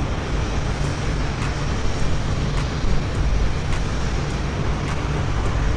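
Boeing 747-8's four GEnx jet engines, heard as a loud, steady roar with a deep rumble as the airliner rolls out on the runway after landing, ground spoilers up.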